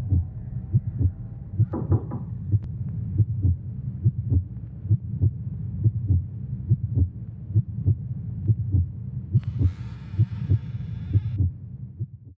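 Heartbeat sound effect thumping steadily about twice a second over a low steady hum. A hiss comes in for about two seconds near the end, then everything cuts off suddenly.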